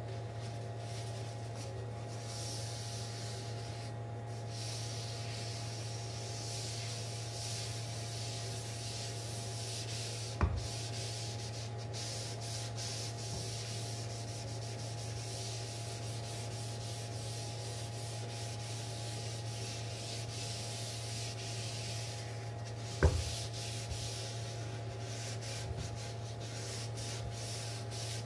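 Cloth rubbing oil into a wooden cutting board in repeated back-and-forth wiping strokes, a steady swishing hiss. Two short knocks come about ten seconds in and near the end, the second the loudest sound, and a steady low hum runs underneath.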